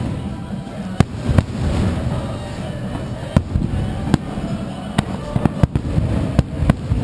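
Aerial fireworks bursting: an irregular run of sharp bangs, several close together near the middle and end, over a continuous low rumble of further explosions.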